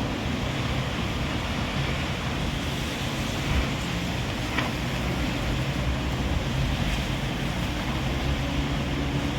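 Strong wind blowing steadily, buffeting the microphone with a deep rumble, and a faint low steady drone underneath.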